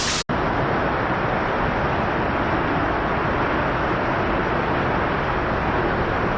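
Steady, loud rush of a storm-fed waterfall pouring inside a cave, with a split-second dropout just after the start.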